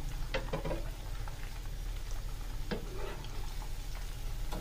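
Egg-coated chicken kebabs deep-frying in hot oil: a steady bubbling sizzle with a few sharper crackles, about half a second in and again about three seconds in.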